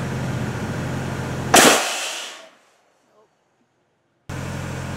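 A compressed-air pumpkin cannon fires: a steady low mechanical hum, then about a second and a half in a single loud blast that dies away over about a second. It goes quiet, and the same low hum starts again near the end.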